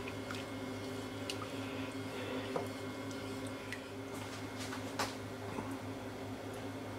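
Faint small pops and ticks from a saucepan of white-wine and veal-stock sauce heating on the hob, just short of coming back to the boil, over a steady low hum. The clearest tick comes about five seconds in.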